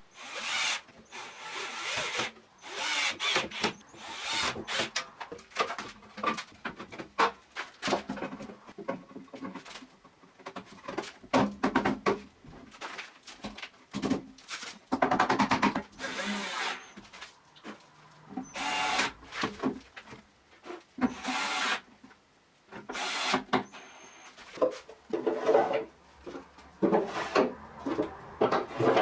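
Wood being handled and worked: a long string of irregular scrapes, rubs and knocks, likely the wooden drawers and their slides being fitted and moved.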